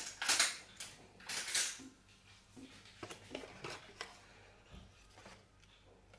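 Cardboard box of starch being handled and a teaspoon scooping powder out of it: two short rustles in the first two seconds, then faint clicks and scrapes.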